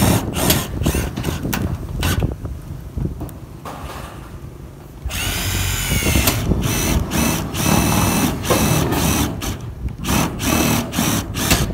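Milwaukee M18 cordless drill driving self-drilling screws through corrugated metal roofing sheets, in repeated short bursts, with a quieter gap around the middle before the driving resumes.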